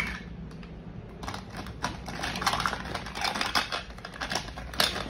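Hard plastic toy pieces clicking and clattering as they are handled and rummaged through, a rapid, irregular run of light taps that picks up about a second in.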